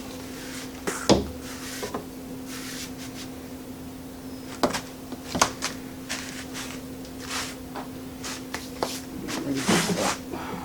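Scattered clicks and knocks of metal parts and hand tools being handled as a planer extension bed is fastened on, the loudest knock about a second in, over a steady low hum.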